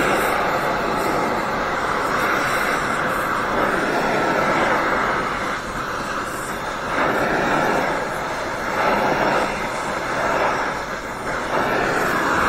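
Oxy-fuel torch flame hissing steadily while brazing a cast iron exhaust manifold. The hiss swells and dips a few times as the torch is worked over the joint.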